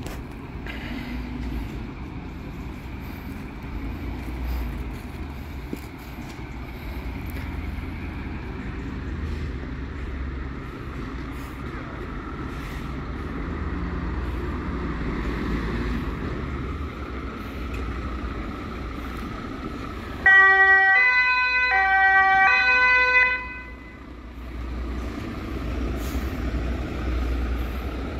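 Steady low rumble of a fire engine's engine pulling out. About twenty seconds in, a German two-tone siren (Martinshorn) sounds briefly for about three seconds, alternating between a high and a low tone; it is the loudest thing here.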